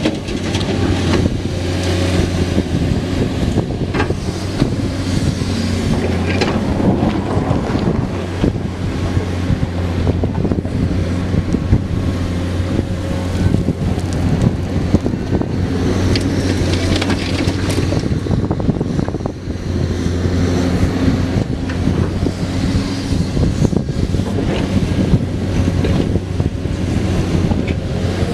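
Komatsu PC210 hydraulic excavator's diesel engine running steadily at working speed, with occasional knocks and wind buffeting the microphone.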